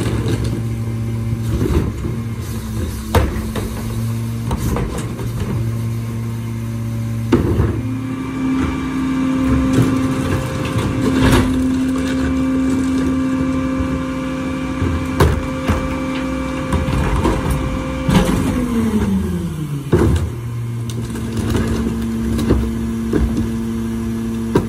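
Diesel engine of a Mack LR rear-loader garbage truck with a Leach Alpha III body running at idle, then revving up about seven seconds in and holding a higher steady speed for about ten seconds while the hydraulic packer cycles, before winding back down to idle. Scattered clanks and knocks of the carts and hopper machinery.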